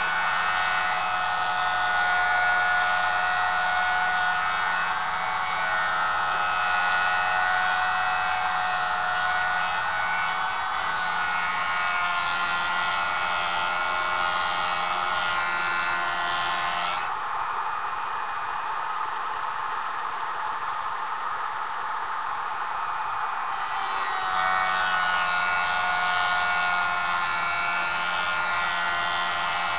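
Jooltool sharpening system's electric motor running steadily with the abrasive disc at work, a hum of several steady tones over a high hiss. The high hiss thins out about 17 seconds in and comes back about 24 seconds in.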